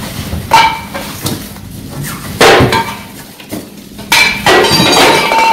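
Sheet-metal barbecue grill parts clanking against each other as they are handled and set down: a few sharp knocks that ring briefly, and a longer run of clattering near the end.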